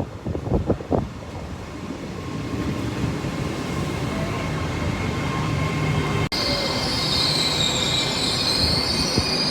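Train running along the line, its noise building steadily. About two-thirds of the way through, a high, wavering squeal of wheels on rail joins in.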